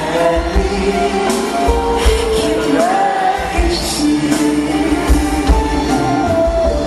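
Live pop music with a singer: a vocal melody over a band, with a steady bass beat underneath.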